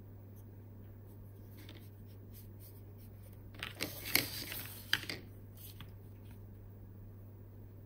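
Paper and brush being handled on a tabletop: a brief cluster of rustling, scraping and sharp taps about halfway through, over a low steady hum.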